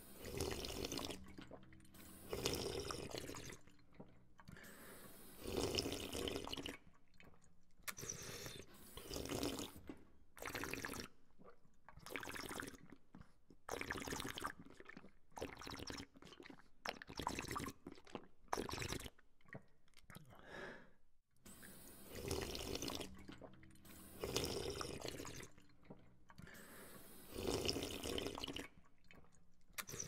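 A person drinking from a water fountain: the water stream splashes and the drinker sips at it, in irregular bursts of a second or two with short breaks between.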